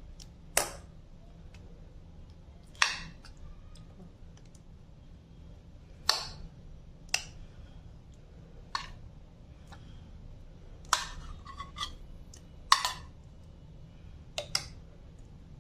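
Light clacks of a utensil against a pan as pieces of marinated rui fish are laid in one at a time, about ten sharp clicks at uneven intervals, with no sizzle.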